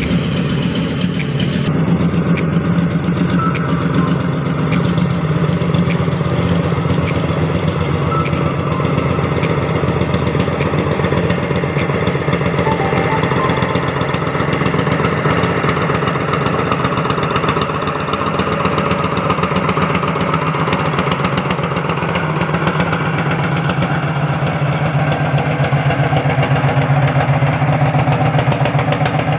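An engine running steadily at an even speed, with a low, constant hum.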